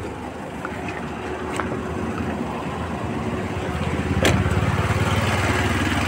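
Honda City i-DTEC diesel engine idling with the air conditioning switched on, growing louder toward the end. There is a sharp click a little past four seconds in.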